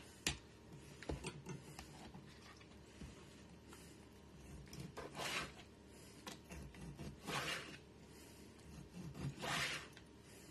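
Kitchen knife slicing chicken on a plastic cutting board: faint soft swishes of the blade drawing through the meat, one stroke every two seconds or so, with a few light knocks of the blade on the board.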